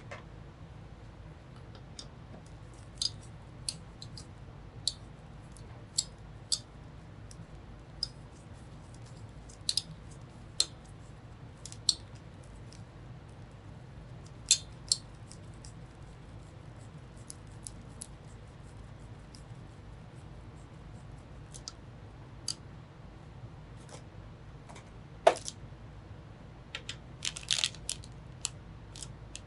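Sparse, irregular light clicks and taps of small hardware being handled during hand assembly of a desktop PC, with a quick cluster near the end, over a low steady hum.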